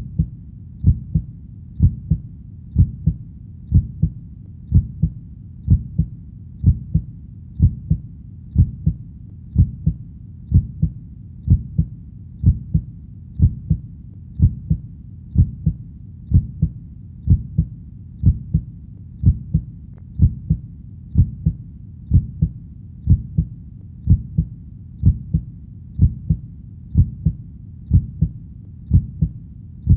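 A heartbeat playing steadily, about one beat a second, each beat a pair of low thumps.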